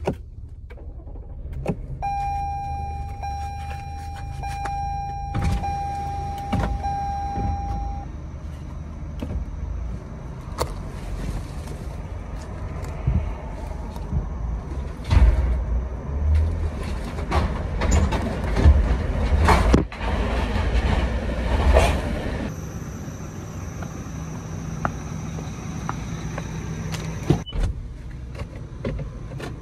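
Inside the cabin of a new Toyota being driven off a car-hauler trailer: a steady warning chime sounds for several seconds near the start, then the engine runs with loud knocks and clunks as the vehicle moves over the trailer decks.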